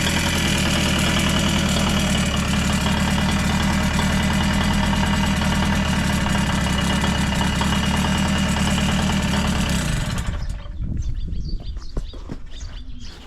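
Yamaha YB-1's 50cc two-stroke single idling steadily, then cut off abruptly about ten seconds in, leaving a few faint clicks.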